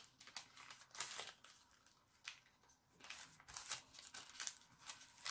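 Pattern paper rustling and crinkling faintly in short, scattered bursts as hands fold it and smooth it flat into pintuck pleats, with a brief pause midway.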